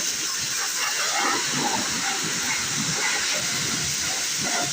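Pressure washer spraying a jet of water onto a motorbike, a steady rushing noise.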